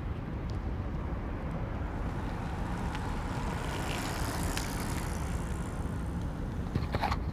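Steady low street rumble, with a passing sound that swells and fades about four to five seconds in, and a few sharp clicks near the end.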